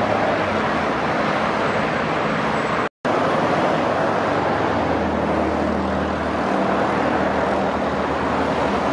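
Steady outdoor rumble of wind and distant road traffic, with a faint low engine hum for a couple of seconds midway. The sound drops out completely for a moment about three seconds in.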